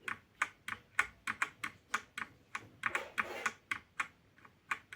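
Keys of a Cosmic Byte mechanical keyboard being pressed one after another, sharp irregular clacks a few times a second.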